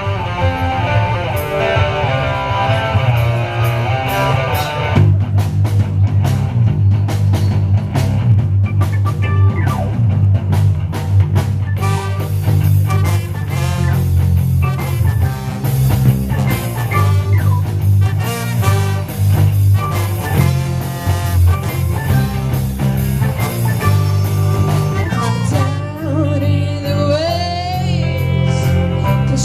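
Rock band playing. A guitar plays alone for the first five seconds or so, then the drums and bass come in.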